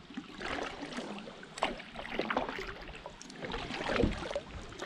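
Kayak paddle strokes: the blade dipping and splashing in the water in irregular clusters, about one every second and a half.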